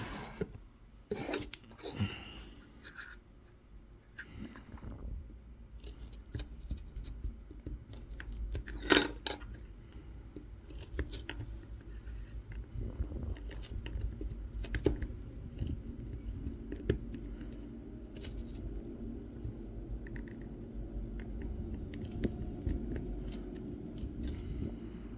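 Tip of a Mora 106 knife scoring short straight lines into a wooden spoon: repeated small scratches and clicks as the blade cuts and lifts, with one sharp tap about nine seconds in.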